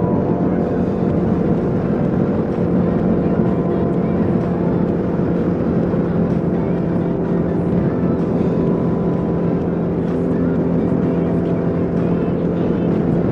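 Kawasaki KLR 650's single-cylinder engine running steadily at highway cruising speed, with wind rushing over a helmet-mounted microphone.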